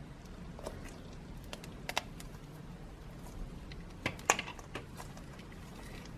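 Slime being squeezed and worked by hand, making scattered small wet clicks and pops, with the loudest cluster just after four seconds.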